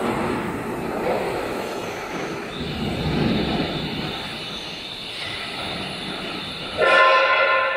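Steady machinery noise with a thin high whine coming in about a third of the way through. Near the end a loud horn-like tone with several pitches sounds suddenly for about a second.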